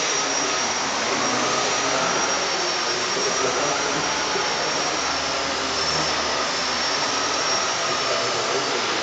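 Blade SR electric RC helicopter in flight: a steady high motor-and-gear whine over the whoosh of its wooden main rotor blades. The whine's pitch dips slightly about halfway through and comes back up as the throttle and load change.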